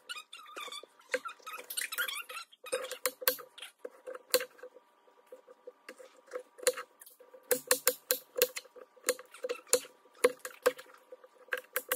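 Kitchen knife chopping green bell pepper on a wooden cutting board: irregular knocks of the blade striking the board, some in quick runs of chops and some spaced out.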